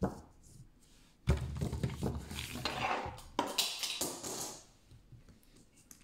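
Plastic fidget toys handled and knocked against a table, with a sharp click at the start and two sudden knocks, about a second in and about three and a half seconds in, each followed by rattling and rubbing.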